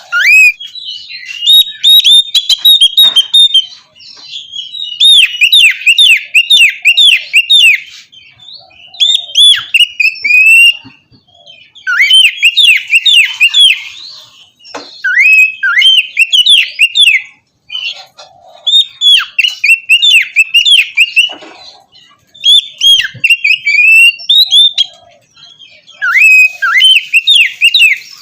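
Oriental magpie-robin (kacer) singing loudly in phrases of rapid, repeated, sweeping whistled notes. Each phrase lasts two to three seconds, with short pauses between, about ten phrases in all.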